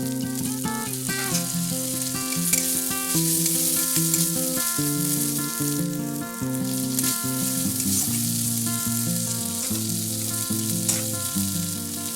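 Onion, ginger-garlic paste and turmeric frying in hot mustard oil in a kadai, a steady sizzle as the masala is stirred. Background music with held, changing notes plays over it.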